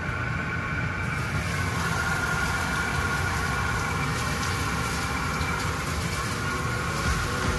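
Whole spices (cinnamon stick, cardamom, star anise) sizzling in hot oil in a wok as they are fried to release their aroma, the sizzle growing louder about a second in. Underneath runs a steady low mechanical hum.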